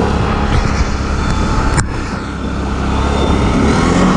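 Arctic Cat MudPro ATV engine running under way on a dirt trail, easing off about two seconds in and then building again, with one sharp click just before the dip. The engine is freshly swapped in and being broken in.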